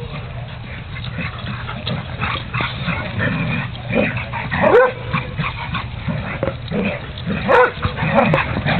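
Dogs in rough play giving short pitched yips and barks, the loudest calls about halfway through and again near the end.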